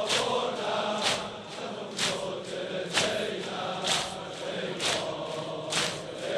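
Large crowd of male mourners chanting in unison, with a loud collective chest beat (sineh-zani) landing together about once a second, the beat of a Muharram mourning rite.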